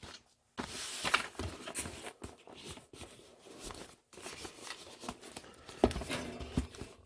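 Hands rubbing and smoothing a strip of water-activated paper packing tape down onto a cardboard box: dry scraping and rustling, with a few sharp knocks near the end.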